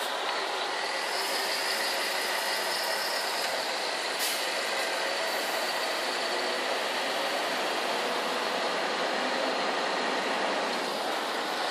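Scania R500 truck, a V8, driving along heard from inside its cab: a steady running noise of engine and cab. There is one short click about four seconds in.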